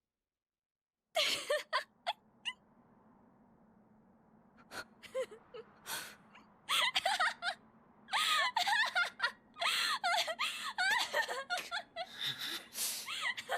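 A young woman's voice laughing hysterically in short, breathless, gasping bursts that begin after about a second of silence. The bursts come sparsely at first and grow dense and nearly continuous past the halfway mark, over a faint low hum.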